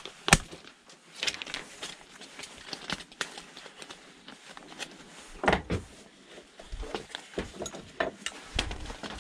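White plastic housing of an electric fan being handled and taken apart, giving a string of plastic clicks, knocks and rattles. The sharpest click comes just after the start, and a heavier knock comes about five and a half seconds in.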